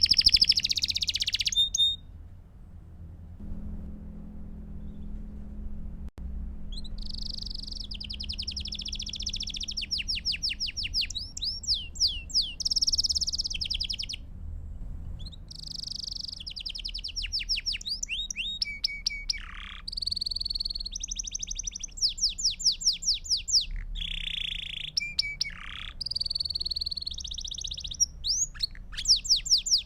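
Belgian canary singing in long phrases of rapid trills and repeated chirps, with a few quick downward whistles and short pauses between phrases, over a steady low hum.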